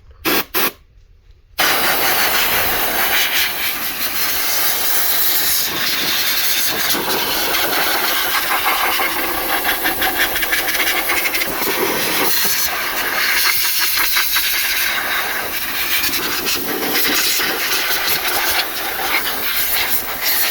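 Compressed-air blow gun hissing: two short blasts, then a long continuous blast that wavers in strength, blowing loose dirt out of the inside of an opened coffee machine.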